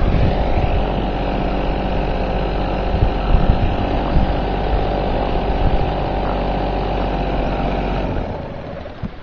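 Small two-stroke 3.5 hp Sea King outboard motor running at a steady speed, then dying away and stopping about eight seconds in.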